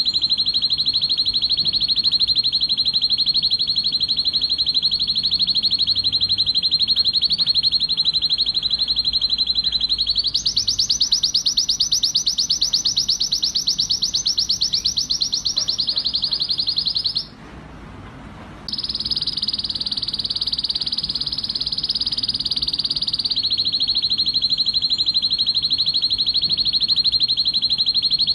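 Male domestic canary, a red-factor bird, singing an excited song of continuous rapid trills. About ten seconds in it switches to a higher, faster trill, breaks off for about a second and a half a little past halfway, then goes on trilling.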